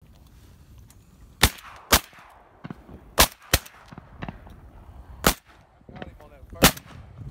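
Hunters' shotguns firing at a duck flying overhead: five loud, sharp shots spread unevenly over about five seconds, with a couple of fainter shots from farther off between them.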